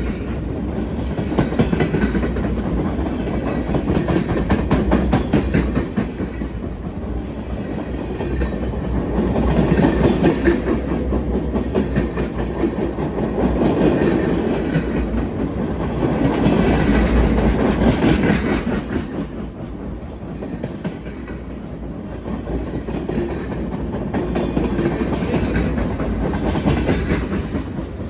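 Freight train cars rolling past, empty flatcars and then covered hoppers: steel wheels clicking over the rail joints, the rumble swelling and easing every few seconds as each set of wheels goes by.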